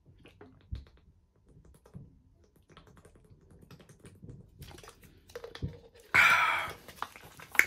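A person gulping water from a plastic bottle: faint scattered clicks of swallowing and the bottle for several seconds, then a loud breathy exhale of relief about six seconds in.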